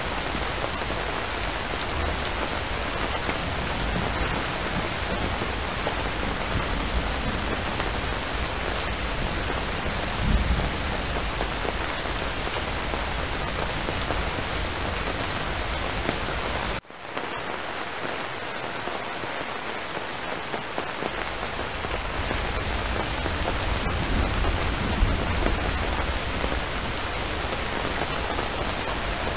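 Steady rain falling and pattering on a surface, with brief low rumbles about a third of the way in and again near the end. The rain cuts out for an instant a little past halfway, then resumes.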